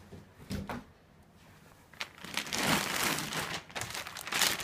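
Clear plastic bag crinkling and rustling as hands handle it and pull it off a shield replica, with a couple of faint rustles early and steady loud crinkling from about two seconds in.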